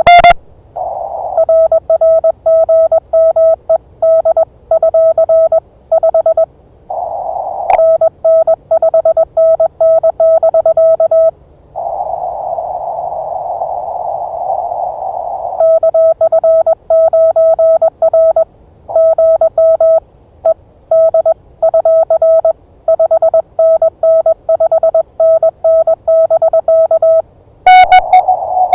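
Morse code (CW) signals on a ham radio transceiver: a steady-pitched tone keyed in quick dots and dashes, in several runs, with the hiss of band noise heard through the narrow CW filter between them and on its own for a few seconds about halfway through. Near the end a louder, slightly higher-pitched keyed tone begins.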